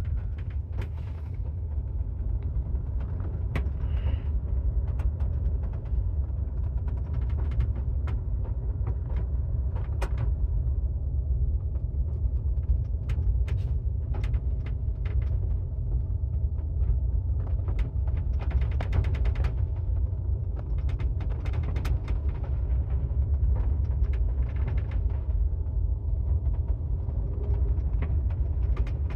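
A ship's engines giving a steady low rumble, with frequent light clicks and creaks of fittings over it.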